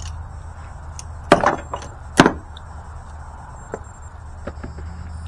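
Two loud, sharp knocks about a second apart, followed by a few lighter clicks, over a steady low hum of an idling engine.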